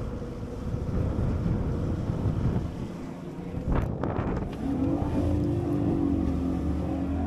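Outboard motor of a fishing boat running, with wind and water noise. A single knock comes about four seconds in, after which a deeper, steady engine tone sets in.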